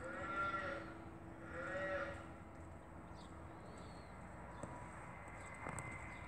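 An animal calling twice, about a second and a half apart, each call short and rising then falling in pitch.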